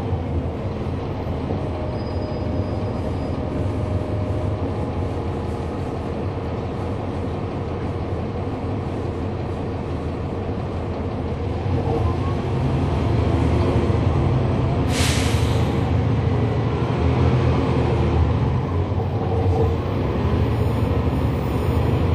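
Cummins ISL9 inline-six diesel engine of a 2011 NABI 40-SFW transit bus, heard from on board, running steadily and growing louder about twelve seconds in. A short hiss of air cuts in about fifteen seconds in.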